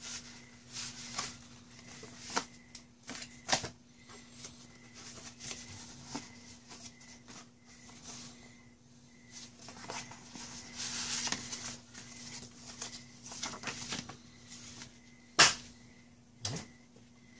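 Paper and card being handled: printed inserts and stiff cards flipped, slid and shuffled, with scattered sharp taps and rustles and one louder snap about fifteen seconds in. A faint steady hum sits underneath.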